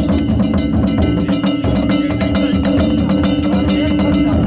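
Danjiri float music: taiko drums and clanging hand gongs beaten in a fast, dense rhythm, with a steady low tone held underneath.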